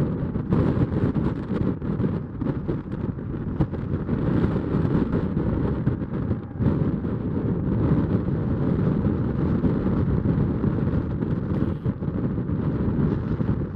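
Wind buffeting the microphone in uneven gusts, a loud rumbling rush with no clear tone.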